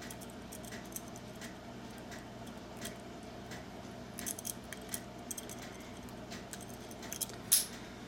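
Light metallic clicks and ticks of a jackknife lock pick being rocked in the keyway of a Master Lock No. 150 brass padlock under tension, with a louder click near the end as the lock opens.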